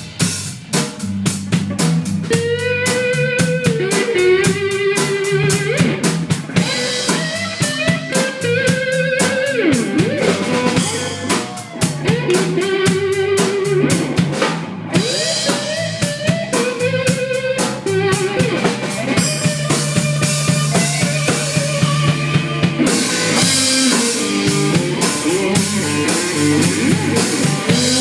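Live rock-blues instrumental: an electric guitar plays a lead line of held, bent and sliding notes over a full drum kit beating steadily with kick, snare and cymbals.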